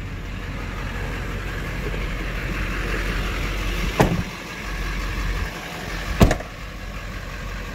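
Duramax diesel pickup idling with a steady low hum, and two solid door slams, about two seconds apart, near the middle of the stretch.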